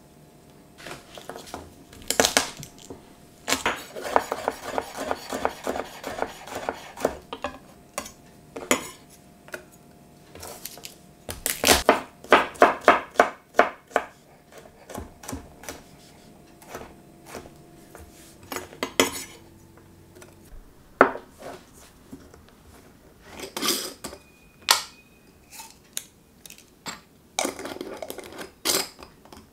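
Kitchen prep sounds: a kitchen knife chopping garlic cloves on a wooden board in a quick, regular run of strokes, amid scattered taps, clicks and clatter of ingredients being handled and dropped into a small steel saucepan.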